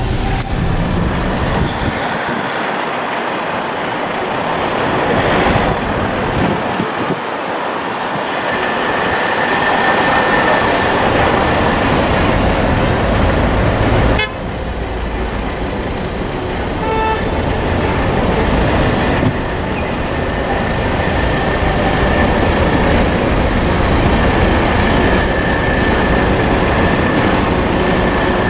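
Dense city traffic heard from inside a moving car: engines and tyre noise, with car horns sounding now and then, a longer one around ten seconds in and another near the end.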